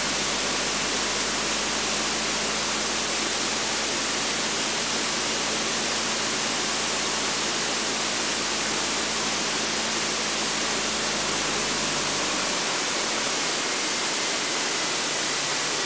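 Steady hiss of cockpit noise heard through the aircraft intercom feed during a landing and rollout, with a faint low hum underneath that drops away about twelve seconds in.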